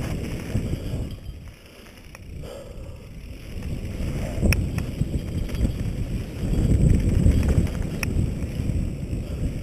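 Wind buffeting a helmet-mounted camera's microphone while a mountain bike descends a dry dirt trail, with the knobby tyres rumbling over the dirt. The rumble eases off briefly and then builds again. A few sharp ticks, typical of stones or chain slap, come about halfway through and near the end.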